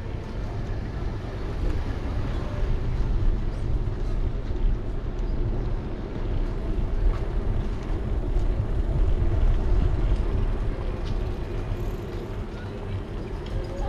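Steady low rumble of wind and rolling noise on the microphone of a bicycle-mounted GoPro riding along a street, with no clear tones or voices standing out.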